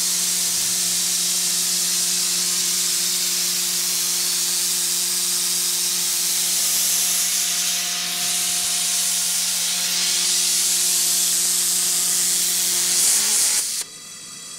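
Steam boiler's pop-off (safety) valve blowing off steam: a loud, steady hiss with a low hum under it, which sags slightly in pitch and then cuts off suddenly near the end as the valve closes.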